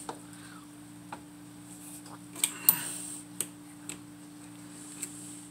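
Scattered light clicks and metallic clinks as a saw chain is handled and set into the vise of an electric chain sharpener, over a steady low hum.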